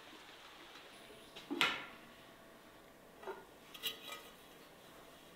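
A few light clinks of a utensil against a dish: one sharper clink about a second and a half in, then two fainter ones.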